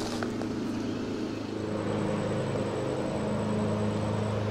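A steady low engine drone that grows slightly louder about a second and a half in.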